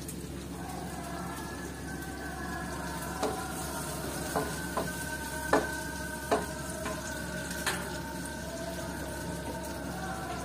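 Pearl onions and vegetables sizzling in a frying pan, with a wooden spatula knocking against the pan about six times as they are stirred. Under it runs a long-held, slowly wavering melody.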